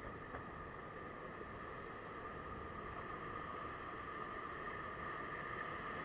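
Ocean surf washing over the rocks below a fishing ledge: a steady hiss that grows slightly louder near the end as a wave breaks, with a faint click about a third of a second in.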